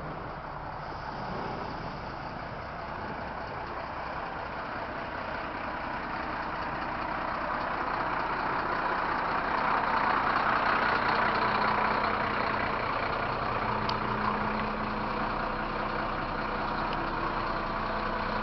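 Mercedes-Benz OF 1724 bus's front-mounted diesel engine running. It grows steadily louder over the first ten seconds or so, then eases off slightly.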